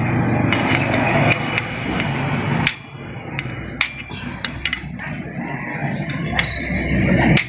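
Hammer tapping a screwdriver used as a punch to seat the locking pins of a Honda Click 150 torque drive, a series of sharp, uneven metal knocks.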